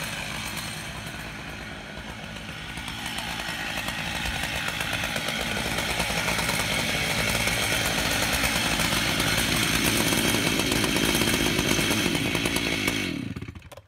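Two chainsaws, one a Stihl 088, running together at high revs on the ends of an 87-inch bar in a double-ended Alaskan chainsaw mill, swelling through the middle. The engines cut off suddenly near the end.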